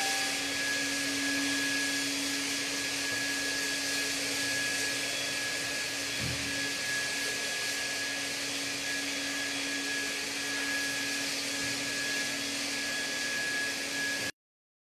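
Corded electric sanitizing sprayer running steadily: an even motor whine over a hissing spray. The sound cuts out for about a second near the end.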